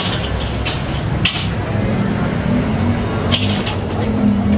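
Street background noise: a steady low rumble with a few light clicks and clatters, and a vehicle's engine hum setting in about halfway through and holding steady.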